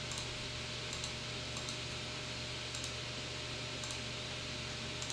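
Desktop PC's cooling fans, the GeForce 7900 GS graphics card's and the CPU cooler's, whirring steadily with a faint constant hum, with a handful of soft keyboard and mouse clicks scattered through it.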